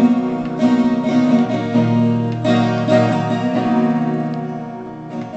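Acoustic guitar strummed, a chord struck roughly every half second and left ringing, the sound fading off over the last couple of seconds.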